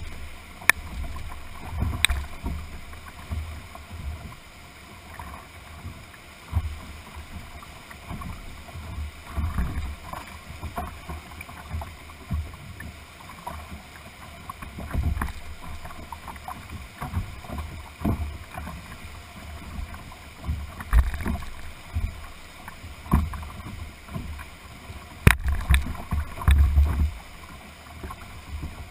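Whitewater rapids rushing steadily past a canoe held against a rock bank, with water slapping the hull and irregular knocks and low thumps as the boat is buffeted. One sharp crack stands out late on.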